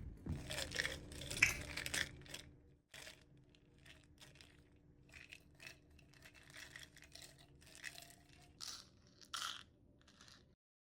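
Recorded foley effects: a run of irregular crunching, rustling and tearing noises, louder for the first two seconds and then fainter, with a couple of sharper scraping strokes near the end before the sound cuts off to silence.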